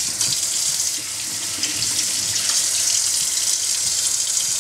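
Tap water running steadily into a basin, a constant hiss.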